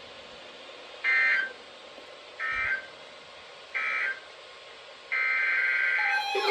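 EAS digital data bursts: three short warbling screeches about a second apart, the end-of-message code that closes an alert. About five seconds in comes a longer burst of the same kind, the header of the next alert, and a steady alert tone starts just before the end.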